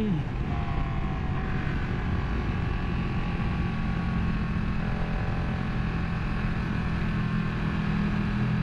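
Ducati 959 Panigale's Superquadro L-twin engine running at a steady cruise while riding, mixed with wind rushing over the microphone.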